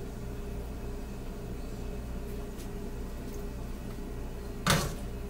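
Kitchen room tone with a steady low hum, and one short clatter near the end as a metal pie pan and kitchen tongs are handled.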